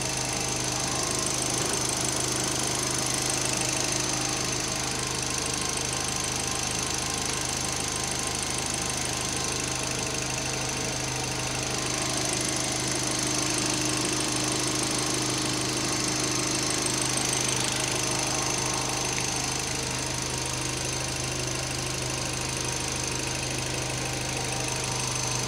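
Chery Fora 1.6 four-cylinder petrol engine idling steadily, with a thin high steady whine over the running.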